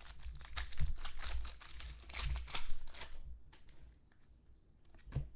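A trading-card pack wrapper being torn open and crumpled by hand, crinkling densely for about three seconds before it dies down. A light knock comes near the end.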